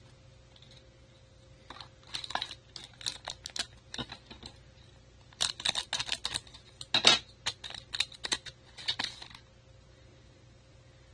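Trading cards and a foil pack wrapper being handled, with bursts of crisp crinkling and clicking. The bursts come about two seconds in and again from about five to nine seconds, loudest around seven seconds.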